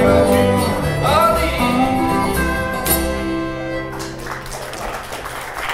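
Old-time country string band of acoustic guitar, fiddle, lap steel guitar and upright bass playing the closing bars of a tune, sliding notes early on, then a held final chord that rings out and fades about four seconds in.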